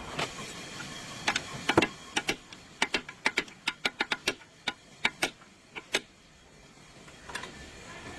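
A run of sharp clicks, irregularly spaced at roughly two to four a second, stopping about six seconds in with one more click shortly before the end.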